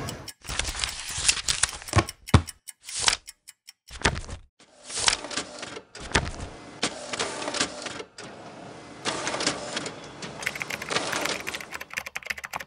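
Office work sound effects: runs of fast clicking and clatter like typing, with papers being handled, broken by short pauses, one about four seconds in.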